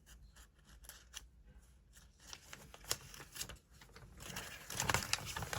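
Paper and plastic packaging being handled: scattered light rustles and clicks, with a busier cluster about five seconds in.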